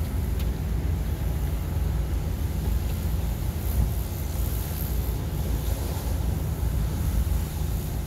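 Pressure washer running: a steady, low rumbling drone with no siren.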